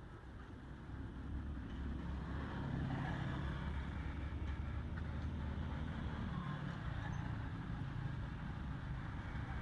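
Low, steady engine rumble of a motor vehicle that grows louder about a second in and then holds.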